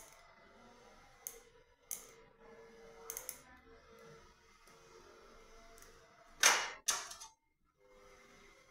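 Orthodontic pliers snapping metal brackets off the teeth during braces removal: several sharp clicks in the first few seconds. Two louder rushing bursts follow about six and a half seconds in.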